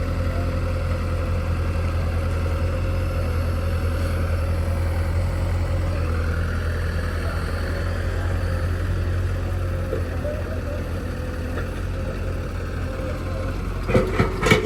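Heavy diesel engine running steadily, with a few sharp knocks near the end.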